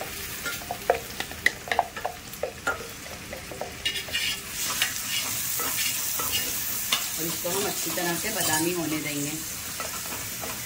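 Freshly added chopped onions sizzling in hot oil in a steel pot. A wooden spatula stirs them, scraping and tapping against the pot in frequent short knocks.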